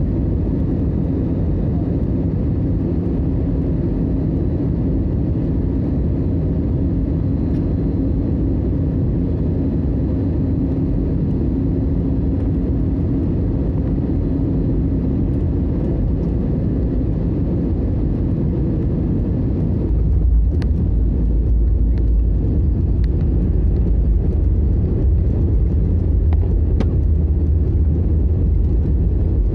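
Steady jet-airliner cabin noise on landing. About two-thirds of the way through the wheels touch down with a thump, followed by the deep rumble of the landing gear rolling on the runway and a few knocks.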